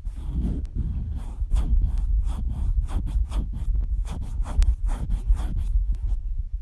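Rapid, repeated rubbing and scraping noises close to the microphone, several a second, over a low rumble, with an occasional sharp click.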